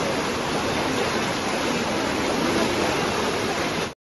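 Fast floodwater rushing in a steady, loud wash of noise, cutting off suddenly near the end.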